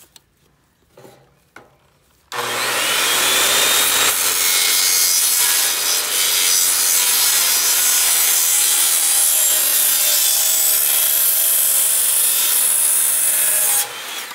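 Corded circular saw starting up with a whine and cutting a compound-angle cut through a 2x4, a 22½-degree bevel along a 22½-degree miter, loud and steady for about eleven seconds before it cuts off near the end. A few faint clicks come before it starts.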